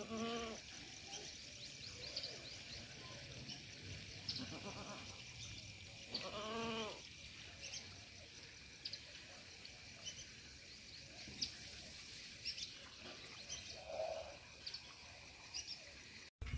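Goat kid bleating twice: one short call at the very start and another about six seconds in.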